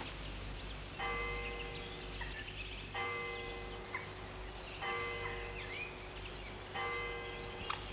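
Church bell tolling: four single strokes about two seconds apart, each ringing on and fading away.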